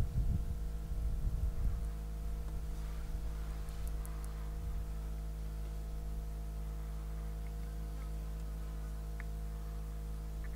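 A steady low hum made of several fixed tones, with uneven low rumbling that dies away in the first two seconds and a few faint ticks about four seconds in.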